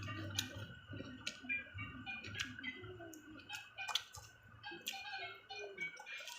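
Close-up chewing of crisp raw fruit: young green mango and cucumber crunched between the teeth, with sharp crunches every second or so over wet chewing.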